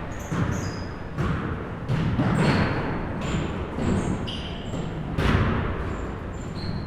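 Basketball play in a gym: a ball bouncing on the floor in several separate thuds, the loudest about five seconds in, with short high squeaks scattered among them.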